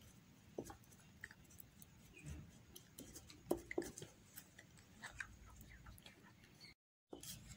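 Faint scraping and ticking of a small paintbrush stirring a wet glue paste in a plastic bowl, in short irregular strokes; the sound cuts out completely for a moment near the end.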